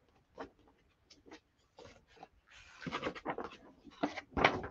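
Large paper poster rustling and crinkling as it is handled and folded: a few light crackles at first, then a louder, denser run of crinkling in the second half.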